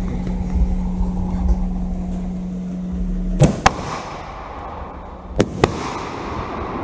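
Consumer firework cake on the ground going off after its fuse has been lit: two pairs of sharp bangs, the first about three and a half seconds in and the second two seconds later.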